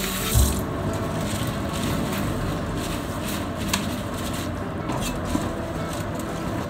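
Kitchen sink tap running, then shut off about half a second in with a low thump. After that there is a steady low hum with a few light knocks from wet spinach being handled at the sink.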